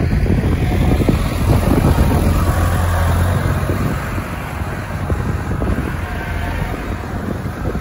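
Case IH front-loader tractor's diesel engine running steadily close by, a constant low hum, with wind buffeting the microphone.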